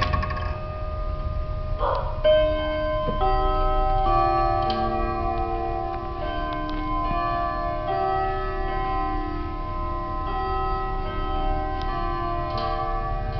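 Pendulum wall clocks striking the hour on their gongs, set off by the minute hand being moved round to twelve. A loud first strike about two seconds in is followed by many more at several different pitches, overlapping and ringing on.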